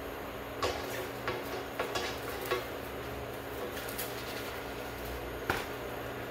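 A cooking utensil knocking and clinking against a crepe pan: a run of light taps in the first two and a half seconds, then one sharper knock about five and a half seconds in.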